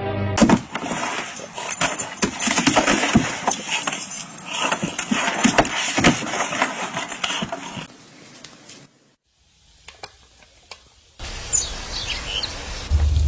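A dog's noises amid clattering and knocks for most of the first eight seconds, then a couple of seconds of near quiet before another stretch of noise with a few faint high chirps.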